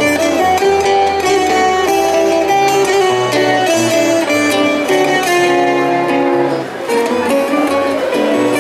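Acoustic guitars playing an instrumental passage, plucked melodic runs over bass notes.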